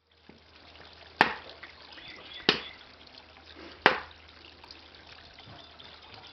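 Garden fountain water trickling steadily as a thin stream pours from one white bowl into a lower bowl. Three sharp knocks about a second and a half apart stand out as the loudest sounds.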